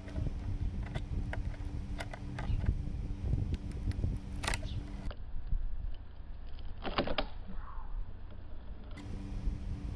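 Scattered clicks and scrapes of a dremel-cut 21700 lithium-ion cell's metal can being handled and pried apart, with a brief cluster of sharper metallic clicks about seven seconds in, over a steady low hum.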